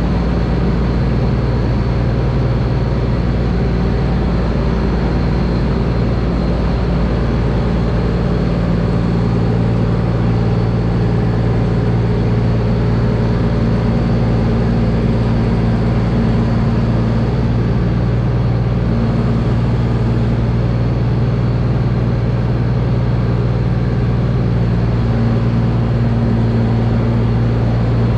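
Massey Ferguson 8570 combine's diesel engine running steadily at constant speed, a deep even drone whose tone shifts slightly a few times.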